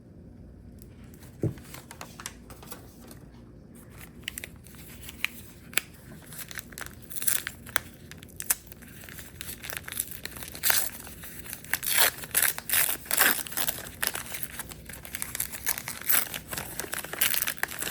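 Packing wrap crinkling and tearing as it is pulled off a crystal by hand. A single knock comes about a second and a half in. The crackling is sparse at first, then grows louder and busier over the last several seconds.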